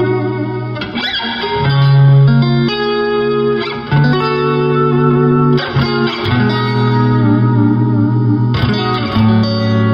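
Electric guitar played through a Vintage Sound Vintage 20 all-tube combo amplifier, picked up by a microphone at the speaker. Sustained chords ring out and change every second or so, with a fresh attack about ten times.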